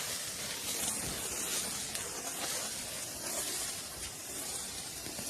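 Handheld firework burning with a steady hiss.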